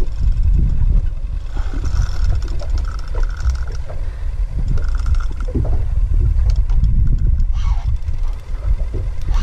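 Wind buffeting an open camera microphone on a small boat at sea, a steady low rumble with water slapping and gurgling against the hull.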